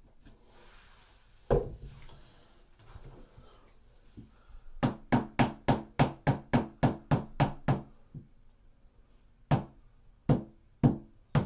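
Claw hammer tapping the edge of an oak pallet-wood block on the wall, nudging it into level. One knock, then a quick run of about a dozen taps at roughly four a second, then four slower taps near the end.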